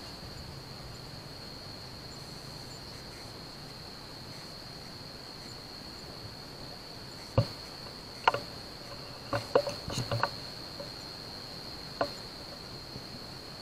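Steady high-pitched chorus of night insects such as crickets. From about halfway through, a few scattered sharp clicks and knocks stand out above it.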